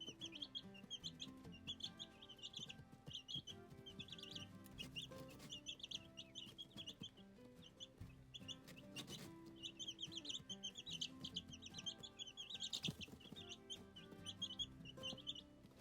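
Baby chicks peeping in a brooder: many short, high cheeps overlapping, coming and going in clusters.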